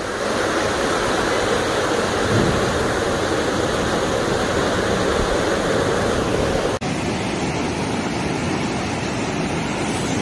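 Floodwater rushing, a loud steady sound of a fast torrent of muddy water. It breaks off for an instant about two-thirds through and carries on as a slightly different rushing.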